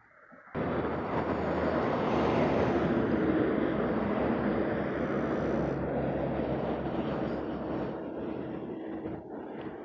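Road traffic noise: a motor vehicle's engine running close by, with a steady low engine hum under a rushing noise. It starts abruptly about half a second in and eases off near the end, as if the vehicle is passing.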